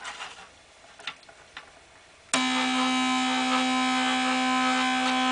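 Stepper motors of a homemade CNC gantry switching on suddenly a little over two seconds in and whining at one steady pitch with several overtones, fed a fixed-rate pulse train from a signal generator. Before that, only a few faint clicks.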